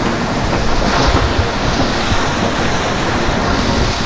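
Whitewater rapids rushing loudly and steadily, churning water heard from a kayak in the middle of the rapid.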